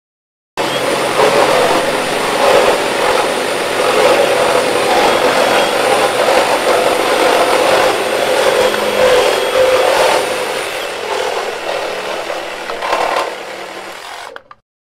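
Four cordless reciprocating saws (Metabo, DeWalt, Hilti and Milwaukee) cutting through a 2x12 studded with framing nails at once, running steadily with a thin high whine over the blade noise. The saws drop out one by one from about ten seconds in, and the last stops suddenly about fourteen and a half seconds in.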